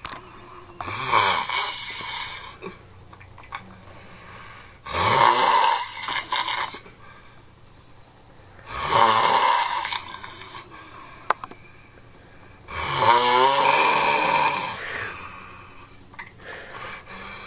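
A sleeping person snoring loudly: four long snores about four seconds apart, with quieter breathing between them.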